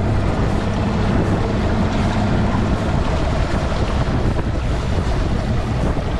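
Bass boat's outboard motor running steadily at low speed, with wind buffeting the microphone and water washing against the hull.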